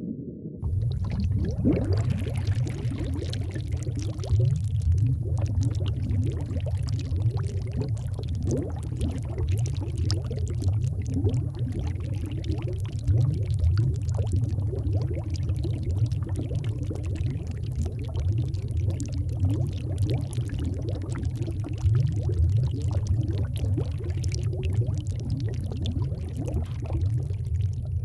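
Aquarium water bubbling and gurgling steadily, with a deep rumble underneath and many small pops; it starts abruptly about half a second in.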